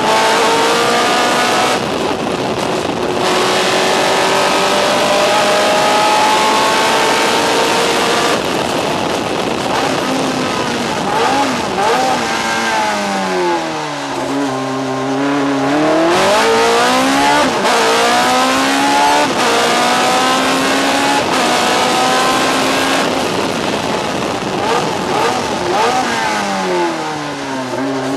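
BMW S14 four-cylinder racing engine of an Osella PA9/90 sports prototype at full throttle, heard from the cockpit: the revs climb again and again through the gears, drop steeply around the middle as the car slows for a tight bend, then climb again, with another drop near the end.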